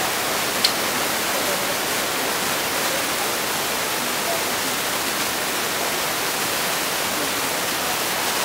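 A steady, even hiss with no rhythm or pitch, and one sharp click a little over half a second in.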